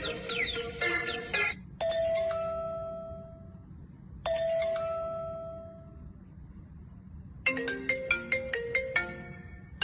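A ringtone-like electronic melody: a quick run of notes that stops about a second and a half in, then two long chime tones that ring and fade a couple of seconds apart, then a fast, bright, mallet-like melody starting near the end.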